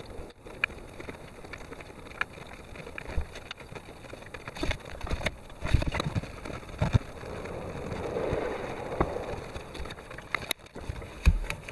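Hand tools being worked on a spark plug deep in a boxer engine's cramped bay: a ratchet, socket and extension give scattered irregular clicks and knocks against metal, over the rustle of clothing rubbing on the engine, with a longer rustling swell about eight seconds in.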